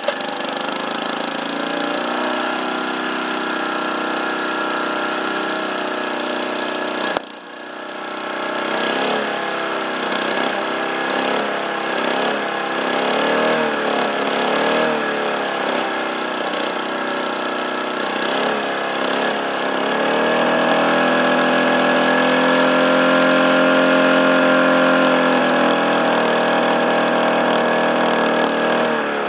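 Small lawn mower engine starting and running, with a sharp crack about seven seconds in where it briefly drops, then surging up and down in speed before settling into steadier, faster running near the end.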